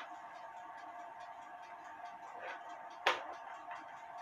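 Faint, even ticking of a running clock over a steady low hum, with one sharp click about three seconds in as small clock levers are handled on the workbench.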